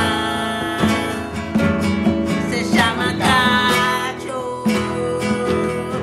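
Two acoustic guitars strummed with congas played by hand, and a man singing over them.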